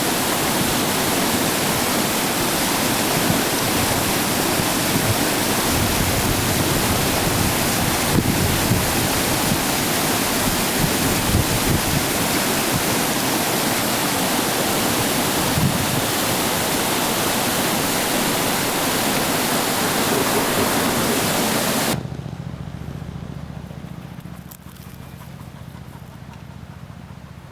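Waterfall on a full creek: a steady rush of falling water. Near the end it cuts off abruptly, leaving a much quieter low hum.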